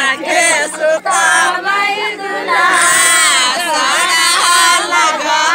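Men's voices loudly singing a rowdy desi wedding gaali song at close range, with other voices joining in; the lyrics tease the groom's party with insults.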